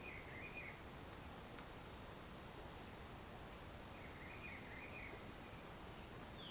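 Faint, steady high-pitched drone of cicadas, with two short warbling chirps, one near the start and one about four and a half seconds in.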